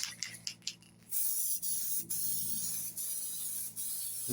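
Aerosol spray paint can: a few last rattles of the mixing ball, then about a second in a steady spray hiss with brief breaks between passes as another coat of paint goes on.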